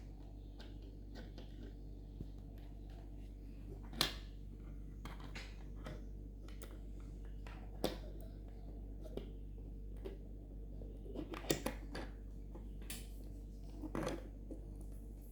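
Small plastic Lego pieces clicking and tapping as a minifigure-scale Lego model is handled and moved: a few scattered sharp clicks over a low steady hum.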